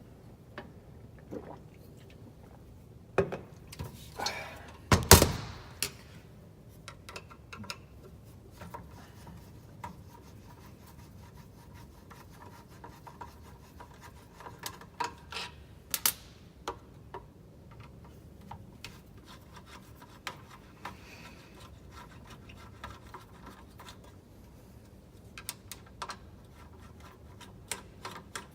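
Scattered clicks, knocks and rubbing from hand work on the parts of a Makita 5704R circular saw, with the loudest knocks about three to six seconds in. No motor is running.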